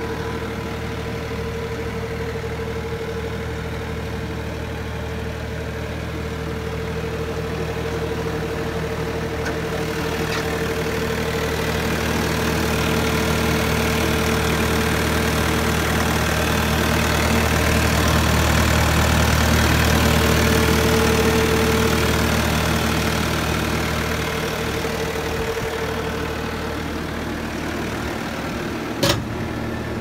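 A 2014 Bobcat S590 skid steer's diesel engine idling steadily, louder in the middle as the open engine compartment comes close. One short sharp click near the end.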